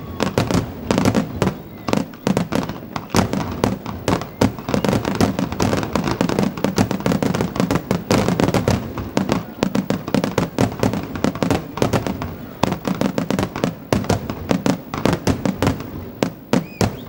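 Aerial fireworks shells bursting in a dense, unbroken barrage, several sharp bangs a second over a continuous rumble and crackle.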